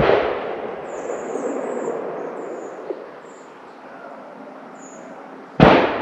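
Two gunshots about five and a half seconds apart, each followed by a rolling echo that dies away over a couple of seconds; the second shot is the louder.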